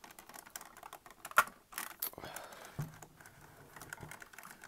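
Hard plastic action figure handled in the hands, giving scattered clicks and taps of plastic parts, the sharpest click about a second and a half in.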